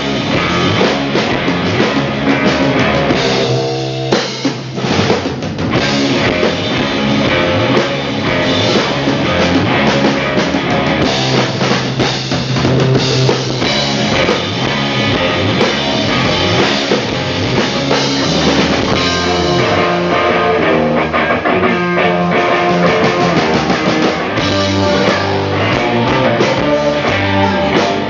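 Live rock band playing at full volume, drum kit and guitar driving a steady beat.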